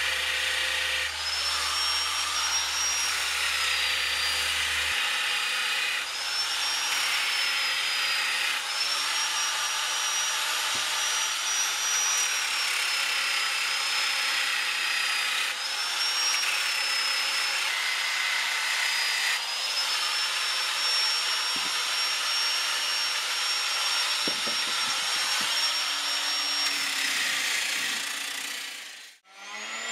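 Angle grinder with a sanding disc on a rubber backing pad, sanding the wooden staves of a small barrel. A steady high motor whine over the rasp of the abrasive on wood, the whine dipping and recovering in pitch, with abrupt changes every few seconds.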